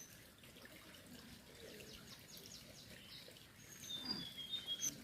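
Small bird chirping: a quick run of short, high notes in the last second and a half, over a faint steady hiss.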